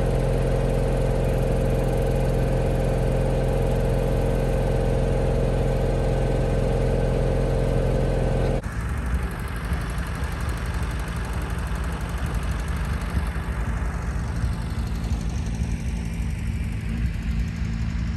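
Engine idling steadily. About eight and a half seconds in it cuts to a different engine running steadily, slightly quieter and lower in pitch.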